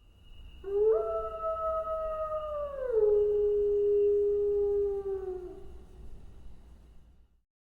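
A canine howling: one long call that holds a steady pitch, steps down to a lower pitch about three seconds in, and falls away at the end.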